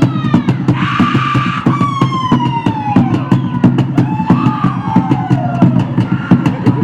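Live Polynesian music: fast, dense percussion strikes over a steady low bass line, with high gliding tones that fall slowly in pitch, the strongest about a second in.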